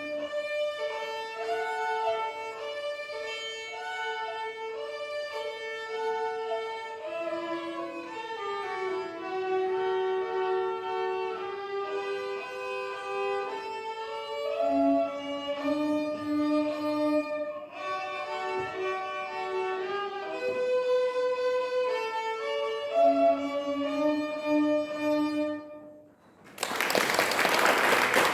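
Violin duet playing a melody over a second, lower violin line in harmony. The music ends about 26 seconds in and applause follows.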